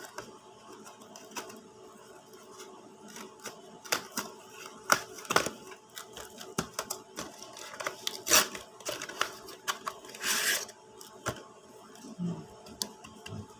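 Packaging being cut and handled by hand: scissors snipping into a plastic mailer pouch, then crinkling plastic and a cardboard box being opened, with many sharp clicks and snips and a longer burst of rustling about ten seconds in.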